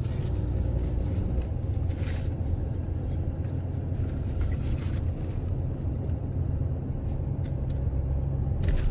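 Vehicle rolling slowly, with a steady low engine and road rumble heard from inside the cab and a few light rattles or knocks.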